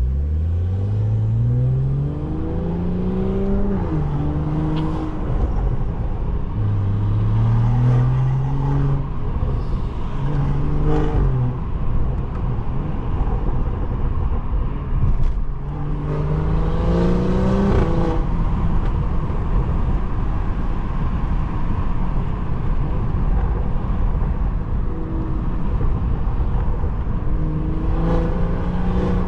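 Tuned BMW 540i's turbocharged 3.0-litre inline-six, with an aftermarket downpipe and catback exhaust, accelerating hard several times. Each time the engine note climbs and then drops back as it shifts up, over a steady low exhaust drone and road rumble.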